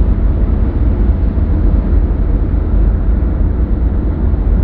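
Steady low rumble of road and engine noise inside a car's cabin while driving on a highway.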